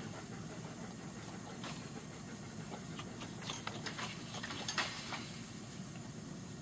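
Steady outdoor background noise, a low hum with a high hiss, with a few faint, irregular clicks between about one and a half and five seconds in.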